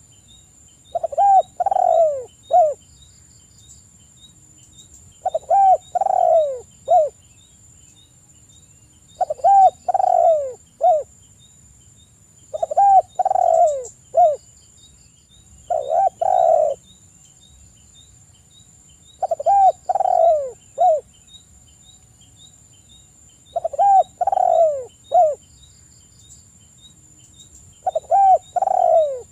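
Spotted dove cooing: phrases of three or four low, falling notes, repeated eight times, about every three to four seconds.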